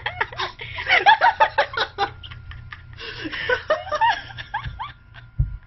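High-pitched laughter in quick runs of short bursts, with a pause in the middle, followed by a low thump near the end.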